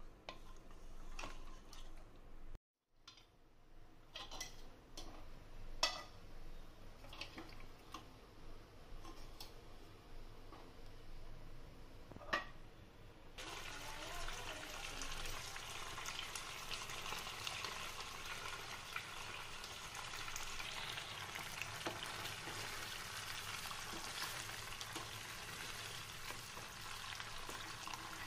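Scattered clinks of a utensil against cookware, then, about halfway through, a steady sizzle of food frying in a pan starts abruptly and keeps on.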